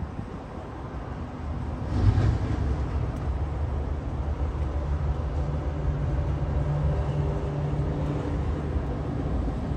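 Diesel engine of a JCB backhoe loader running. It gets louder about two seconds in, then holds a steady drone.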